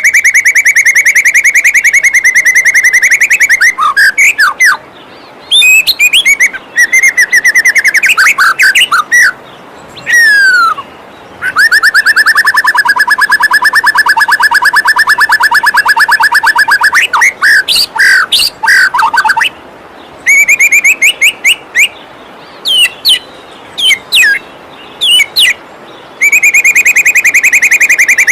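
White-rumped shama (murai batu) singing: long runs of fast, buzzy trills held on one pitch, broken by quick whistled glides and short phrases, over the steady rush of a waterfall.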